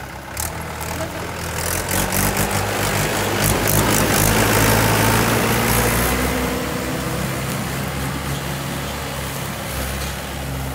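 Mahindra 475 DI tractor's diesel engine pulling a trailer loaded with mud, growing louder as it passes close by about four seconds in, then fading a little as it moves off.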